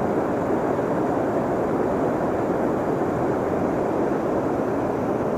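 Steady rushing of fast, foaming river water, an even roar that does not change.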